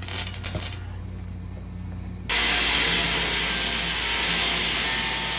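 A power tool starts suddenly about two seconds in and runs steadily with a loud, even hiss, after a low shop hum and a few light clicks.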